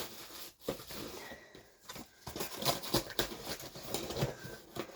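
Items being handled: rustling with a quick string of light knocks, clicks and scrapes.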